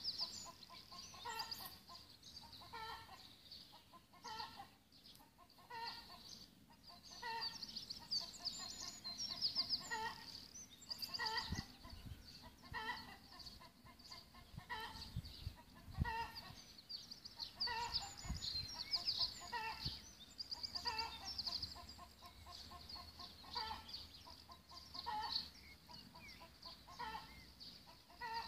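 Chickens clucking with short repeated calls about once a second, some run together into quick stuttering clucks, while songbirds chirp high above them. A few low dull thumps come in around the middle.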